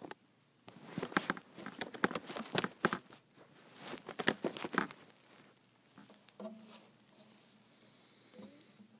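Close handling noise of a phone camera being moved and set in place: a dense run of scrapes, rubs and clicks for about four seconds, then much quieter.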